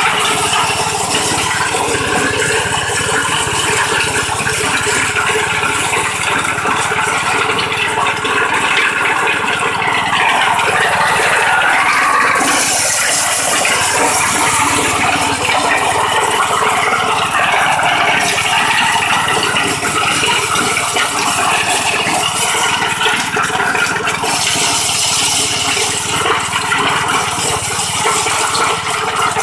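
Homemade corn sheller driven by a small petrol engine, running under load as cobs are fed in: a steady, dense rattling rush of kernels being stripped off the cobs inside the steel drum, with the engine running underneath. The hissing rush swells for a few seconds about halfway through and again near the end.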